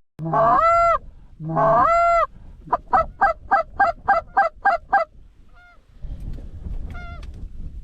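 Canada goose honking: two long, loud honks, then a fast run of about nine short clucks at roughly four a second, then a couple of fainter honks near the end.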